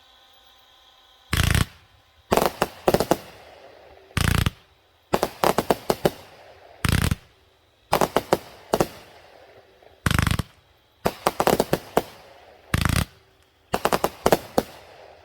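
A 500 g consumer firework cake (Shogun Salute to the Troops, 45 shots) firing. Its shots go off as loud, sharp bangs, a single heavy report alternating with quick clusters of three to five bangs about every one and a half seconds.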